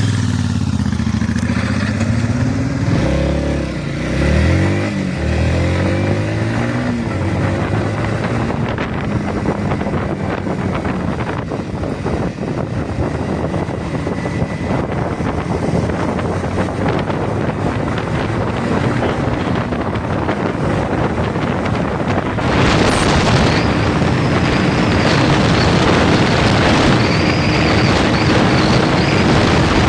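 Motorcycle riding off, its engine note rising and falling through the gears for the first several seconds. After that a steady rushing noise of wind on the microphone takes over and gets louder about two-thirds of the way through.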